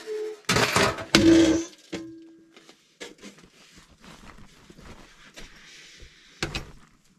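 Sheet-metal stovepipe sections scraping and clanking as they are worked loose and pulled from a small wood stove, with two loud scrapes in the first two seconds, the second ringing on briefly. After that, softer knocks and rustling as the pipe is handled, with a sharp knock near the end.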